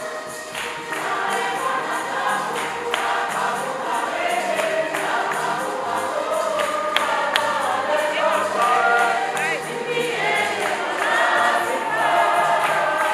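Choir singing a gospel song, many voices together, over a steady beat.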